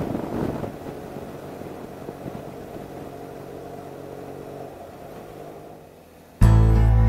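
BMW R1200RS boxer-twin engine running while the bike is ridden, with wind noise, heard from a camera mounted on the bike; the engine sound fades toward the end. Loud background music cuts in abruptly near the end.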